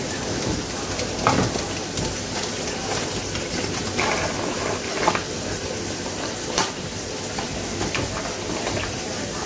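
Jerk chicken sizzling in its pan juices while being basted, a steady hiss broken by a few short clinks and scrapes.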